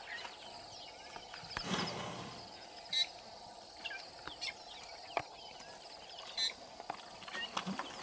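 Bush ambience: many small birds chirping, a faint steady insect hum, a soft breathy rush about two seconds in, and a few sharp ticks.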